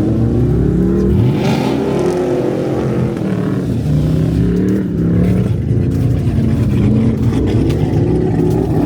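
Car engine revving up and down repeatedly, its pitch rising and falling over and over, as the car sits stuck in snow with its wheels spinning.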